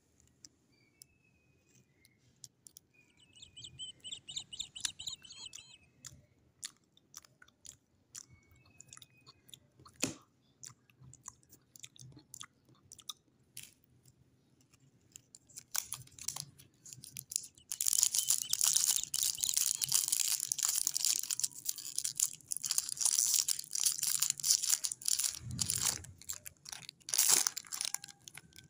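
Clear cellophane lollipop wrapper crinkling and crackling as it is pulled off a swirl lollipop, loud and dense over the last ten seconds or so. Before that there are only scattered light crackles and taps, with one sharp knock about a third of the way in.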